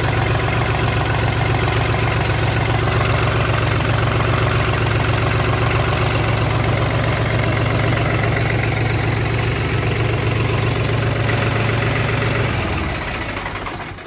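New Holland 3630 Plus tractor's diesel engine running at idle with blow-by. The mechanic puts this down to piston and sleeve damage from sand sucked in through a burst air-inlet pipe. The engine is shut off near the end and dies away.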